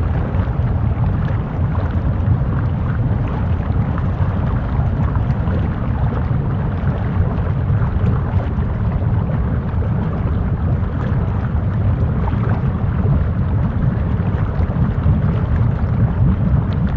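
Lava ambience: a steady, deep, even noise with faint scattered crackles.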